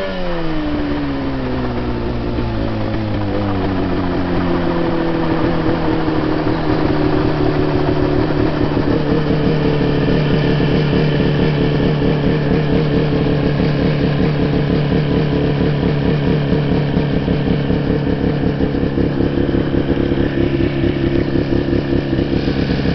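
Mosquito ultralight helicopter's engine and rotor being throttled back: the pitch falls over the first few seconds, then settles into a steady, lower-powered run with a rapid beat.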